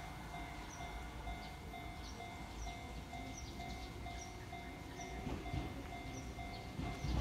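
Japanese level-crossing alarm ringing, an even electronic 'kan-kan' at about two strokes a second. Near the end an Enoden train's low rumble grows as it moves up to the crossing.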